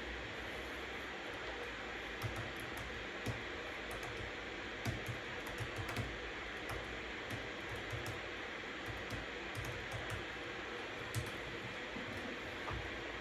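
Typing on a computer keyboard: irregular keystrokes, some louder than others, over a steady hiss of white noise.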